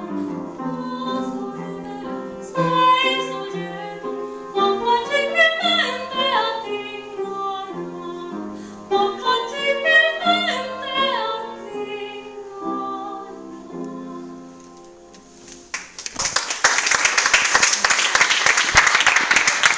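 A woman sings an art song in classical operatic style with piano accompaniment, and the music dies away. Near the end the audience breaks into loud applause.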